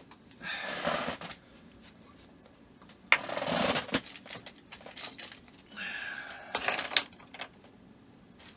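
Three short bursts of rustling and clatter as small model parts and tools are handled and moved about on a workbench.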